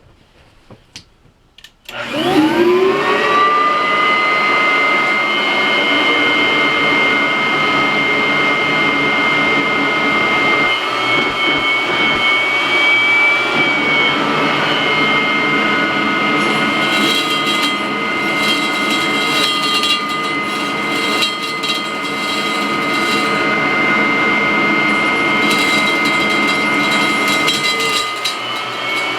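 Kirby upright vacuum cleaner switched on about two seconds in: its motor spins up with a rising whine and settles into loud, steady running with a high whine, the pitch wavering slightly now and then.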